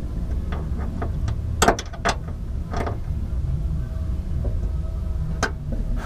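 A wrench working a seat-belt anchor bolt on a van's underbody: a handful of short, sharp metallic clinks, the loudest about a second and a half in, over a steady low rumble.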